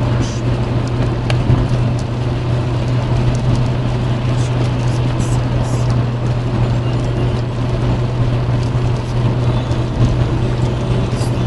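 Car cabin noise at motorway speed on a wet road: a steady low engine and road drone under a constant hiss of tyres on water, with a few brief high swishes.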